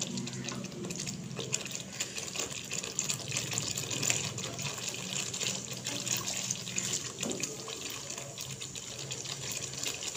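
Thick tomato chutney bubbling and sizzling in oil in a wok, with many small crackles and spatters, while a spatula stirs through it. It is being cooked down to drive off its remaining water.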